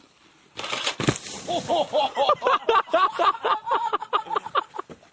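A rush of noise and a sharp thump about a second in, followed by a person laughing in rapid, high-pitched pulses for about three seconds.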